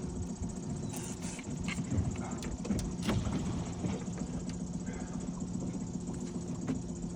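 Boat motor running steadily with a low hum, with scattered light knocks and clicks on top.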